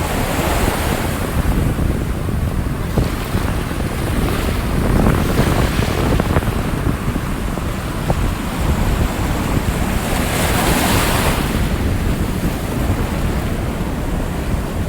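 Rough Atlantic surf: waves breaking and washing in surges every few seconds over a constant roar, the biggest wash about ten seconds in. Strong wind buffets the microphone, adding a heavy low rumble.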